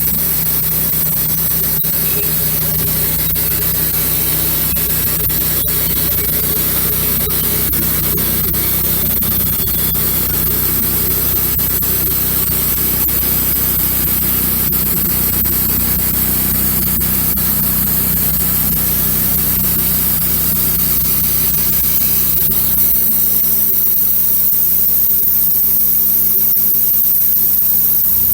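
Wood-Mizer LX150 band sawmill running steadily: a constant engine hum under a steady high hiss. The note shifts about three-quarters of the way through.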